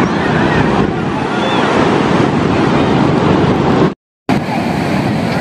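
Ocean surf breaking and washing in a steady roar of water, with wind buffeting the microphone. The sound drops out completely for a moment about four seconds in.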